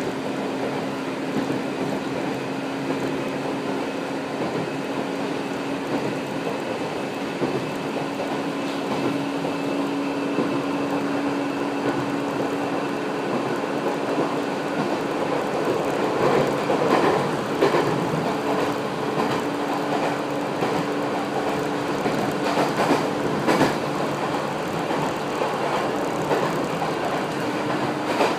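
Former Keio 3000-series electric train running at steady speed, heard from inside the car: an even rumble of wheels on track with a steady hum from the drive. From about halfway on, knocks of the wheels over rail joints come through.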